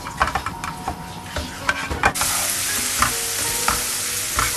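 Garlic and bird's eye chili paste frying in oil, stirred with a spatula that clicks and scrapes against the pan. About two seconds in, a steady sizzle starts suddenly and runs on under the occasional clicks.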